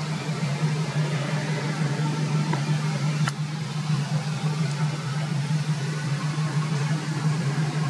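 A steady low mechanical hum, with a single sharp click a little over three seconds in.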